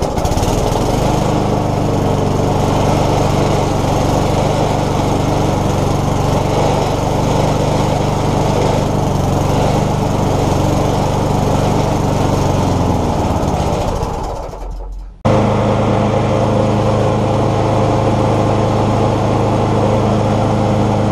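Tecumseh single-cylinder lawn mower engine catching and running steadily at full throttle all by itself. About 13 seconds in its tone sinks as it slows and dies away. About 15 seconds in it is abruptly running steadily again.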